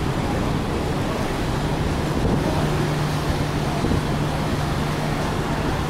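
Steady rumbling noise of the cruise ship Carnival Ecstasy's thrusters churning the water alongside the pier while docking. A low steady hum comes in about two seconds in.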